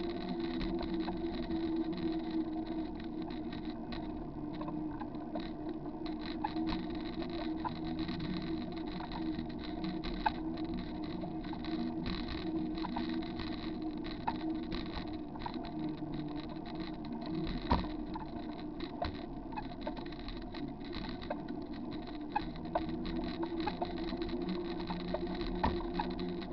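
Bicycle rolling along a wet paved trail, heard close up from the camera mounted on the bike: a steady rolling hum of tyres and drivetrain, broken by scattered sharp clicks and knocks, two of them louder, about ten seconds in and again near eighteen seconds.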